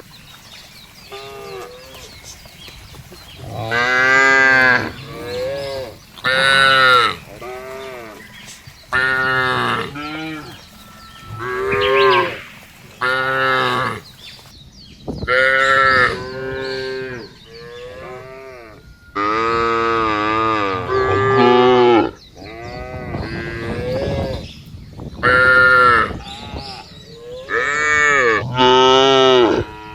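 Cows mooing, call after call: more than a dozen moos, most short and a few long and drawn out, following one another with only brief pauses.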